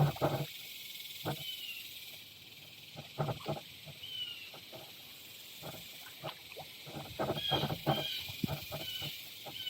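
Irregular hollow knocks and splashes of a kayak paddle working against a plastic kayak in shallow water. A small animal gives short, high, falling chirps over and over in the second half, over a steady high hiss of insects.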